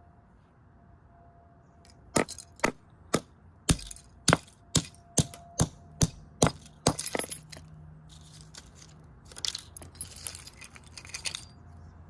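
A hammer striking a Sylvania alarm clock about a dozen times, roughly two blows a second, cracking its case. A few seconds of lighter rattling and clattering of broken pieces follow.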